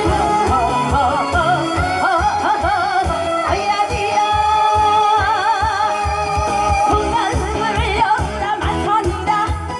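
A woman sings a Korean trot song live into a microphone, amplified through the stage speakers over a backing track with a steady bass beat. Her voice wavers and bends ornamentally on held notes.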